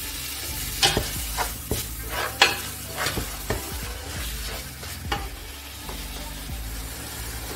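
Minced meat and onions frying in oil in a stainless steel pot, sizzling steadily, while a spatula stirs it with irregular scrapes and taps against the pot.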